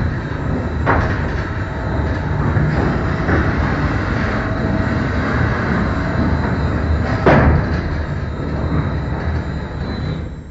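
Wood-packet transport machinery with a hydraulic drive, running with a steady mechanical hum and rumble. A sharp metallic clank comes about a second in and another, louder one about seven seconds in.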